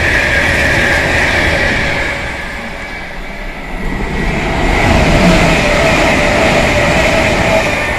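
Two electric passenger trains passing at speed. The first rushes past and fades about two seconds in. The second comes out of the tunnel and passes from about four and a half seconds, with a steady whine over the rushing noise.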